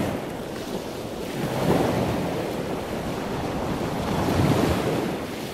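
Rushing water noise, a steady wash that swells and eases about three times.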